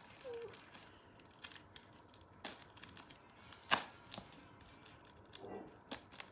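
A parcel being opened by hand: its plastic packaging crinkles and tears in a string of sharp crackles, the loudest a bit before four seconds in.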